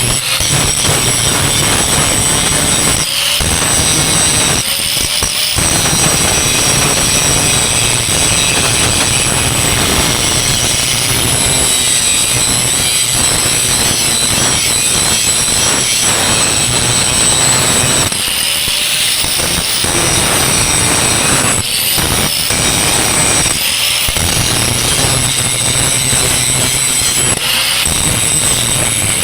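Angle grinder working steel around a cracked boom-pin weld: a steady high whine and grinding hiss. It breaks off briefly several times as the tool lifts off the metal and the pitch shifts, about 3, 5, 18, 22, 24 and 27 seconds in. This is surface preparation before the cracks are welded.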